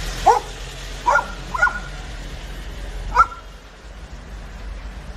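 A dog barking four short, high barks in quick succession, the last a little apart from the others.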